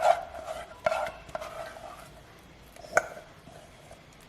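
A spoon scraping and knocking against a container as thick ground urad dal batter is scooped into rice batter. There are a few sharp knocks that ring briefly: the loudest near the start, another about a second in, and one about three seconds in.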